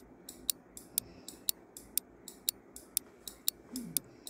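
Countdown timer sound effect: a clock-like tick-tock, about four ticks a second, alternating softer and louder.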